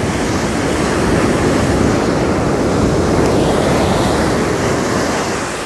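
Ocean surf breaking and foamy water washing through the shallows, with wind buffeting the microphone; the wash eases off slightly near the end.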